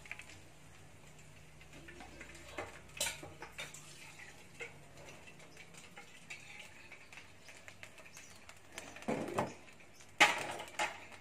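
Quiet kitchen with a few light ticks and taps, then near the end a couple of loud metal clattering knocks as a frying pan is set back down on a gas stove's burner grate.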